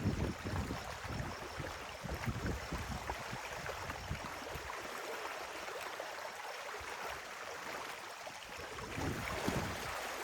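Stream water running steadily through an opened beaver dam, with wind buffeting the microphone in the first couple of seconds and again near the end.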